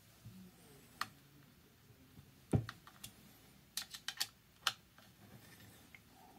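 Scattered light clicks and taps from an Allen key and small set screws being worked into a jet pump housing. There is a sharp click about a second in, a louder knock about midway, then a quick run of clicks.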